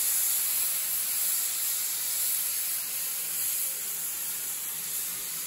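A steam tank locomotive letting off steam through its safety valves: a steady hiss that eases slightly toward the end.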